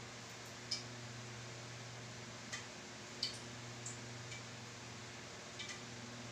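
Irregular light clicks and taps against ceramic plates as raw chicken is pressed and turned in flour and breadcrumbs by hand, over a steady low hum.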